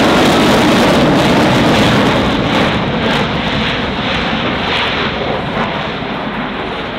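F-35B Lightning II's single F135 turbofan jet engine at full power in a steep climb just after takeoff: a loud, dense rumble with a crackling edge, slowly fading as the jet pulls away.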